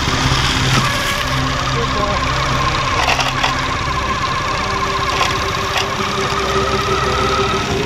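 Small vehicle engine running steadily on the move. A long wavering whine starts about a second in and stops near the end.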